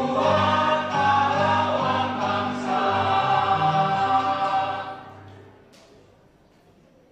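Mixed choir of women's and men's voices singing in harmony, holding a final chord that is cut off about five seconds in and dies away in the hall, leaving it nearly quiet.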